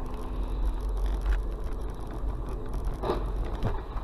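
Car running on the road, a steady low rumble of engine and tyre noise heard from inside the cabin, with two short knocks or rattles about half a second apart a little after three seconds in.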